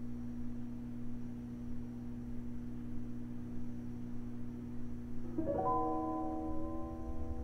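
Quiet horror-film score: a low steady drone, joined about five and a half seconds in by a soft held chord of several higher notes.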